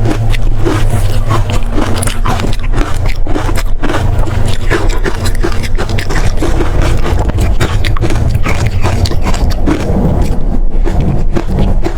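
Biting and chewing of frozen matcha ice: a rapid, irregular run of sharp cracks and crunches over a steady low rumble.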